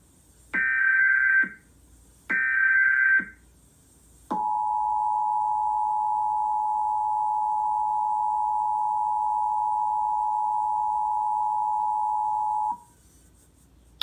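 Emergency Alert System tones announcing a National Periodic Test: two short screeching bursts of header data, about a second each, then a few seconds in the steady two-tone attention signal, held for about eight seconds before it cuts off.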